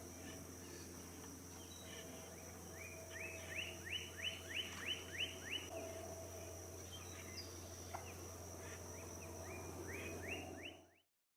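A bird calling: a quick series of short rising notes, about seven in a row, then a shorter series of four or five near the end, over a steady low background hum.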